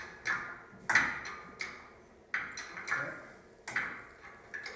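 Lifting gear being worked to raise an engine: a series of sharp metallic clanks with short ringing tails, about seven in all, one every three quarters of a second.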